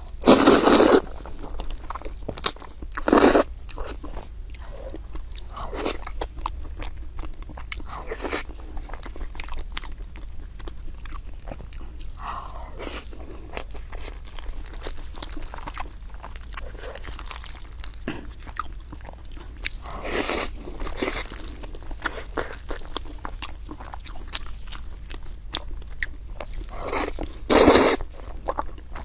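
A person eating close to the microphone: steady chewing with small crunches and clicks, and four louder bites, at the start, about three seconds in, about twenty seconds in and near the end.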